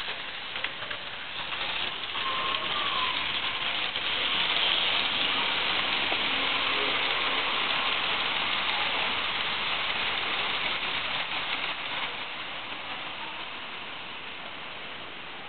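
H0-scale model freight train, hauled by a red electric locomotive, rolling along the layout's track with a steady running noise of wheels on rails. It swells about two seconds in and fades away from about twelve seconds on as the train passes.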